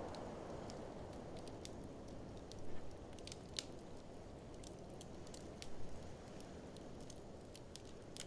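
Wood fire crackling in an open fireplace: irregular sharp pops and snaps, a few louder ones among them, over a steady low rush of blizzard wind.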